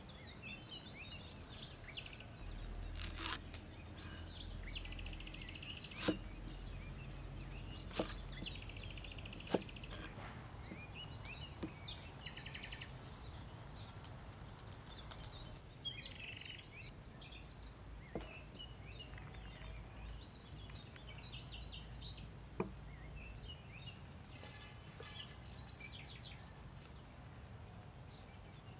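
Birds chirping throughout, with a few sharp, widely spaced knocks of a cleaver striking a wooden chopping block as fresh herbs are cut.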